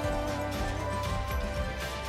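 Background music: held melodic notes over a steady beat.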